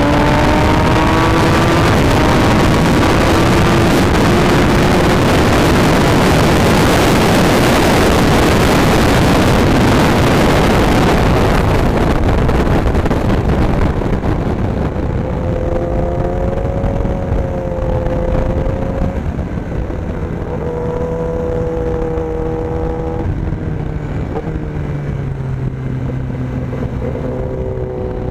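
Sport motorcycle heard from on board at speed: loud wind rush over a rising engine note as it accelerates down the straight, until the wind noise drops away about twelve seconds in. After that the engine note holds, then steps down and up in pitch several times through the corners.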